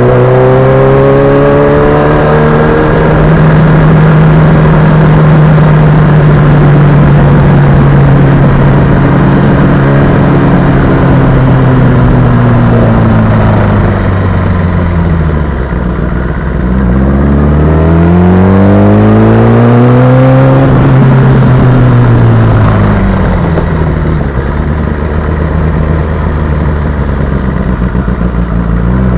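Sport motorcycle engine running at road speed over a heavy rush of wind. The engine note holds steady for the first several seconds, drops as the throttle eases off about halfway through, climbs again as it accelerates, falls back, then starts rising near the end.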